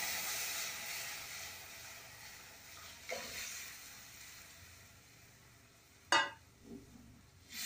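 Rasam poured onto hot tempering oil in a kadai, sizzling and then dying away as the liquid settles. A light metal clink comes about three seconds in, and a sharper clank of steel utensils about six seconds in.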